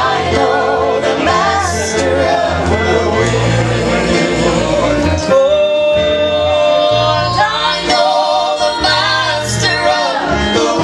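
Gospel music: singing with vibrato over instruments and a bass line that moves note to note.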